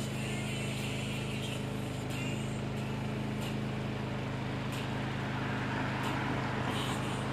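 Steady low mechanical hum of urban background noise, like a running engine or machinery, with a few faint clicks.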